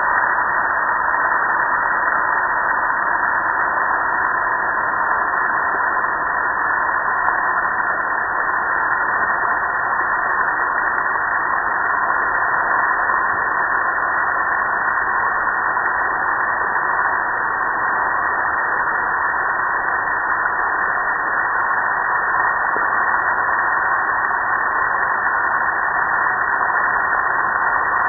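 Water spraying steadily onto a gas grill's lid and running down its metal front: an even, unbroken rush.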